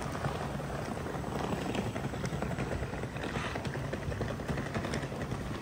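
A steady low hum over a background of even noise.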